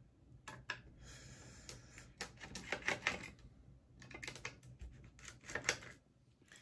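Small screws being turned out of a dock's circuit board with a precision screwdriver: faint, rapid light clicking and scraping in two spells, about two seconds in and again about four seconds in.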